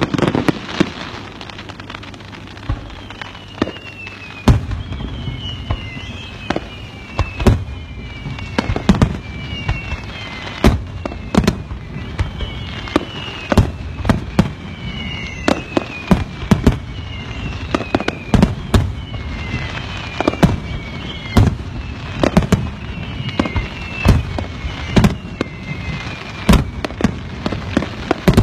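Fireworks going off: an irregular series of sharp bangs, roughly one a second. Through most of it a high whistle falls in pitch again and again, each fall lasting about a second.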